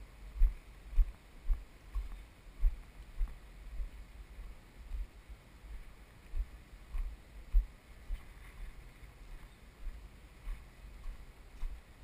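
Low thuds of walking footsteps carried through a handheld camera, about two a second, over a faint outdoor background.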